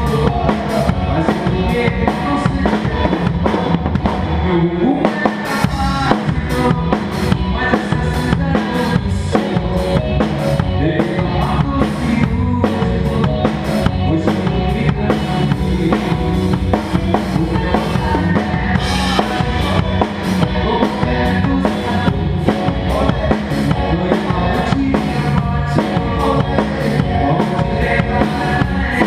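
Acoustic drum kit played to a steady beat over a pop-rock backing track, with kick, snare and cymbal hits driving the rhythm.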